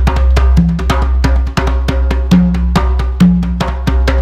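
Conga drums played by hand in a fast, driving solo pattern of about eight strokes a second, with a steady low rumble underneath. The rhythm is meant to evoke a steam train on the move.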